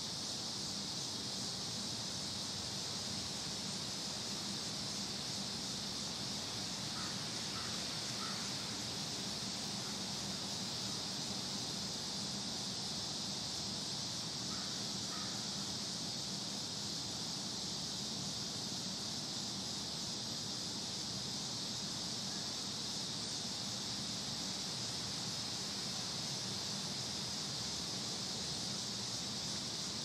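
Outdoor summer campus ambience: a steady high hiss-like drone over a low hum, with a bird calling three times quickly about seven seconds in and twice more around fifteen seconds.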